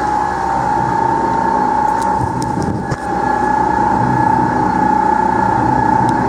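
2008 Mepaco dual ribbon blender running empty, its electric drive turning the stainless ribbon agitators with a steady machine hum and a high whine.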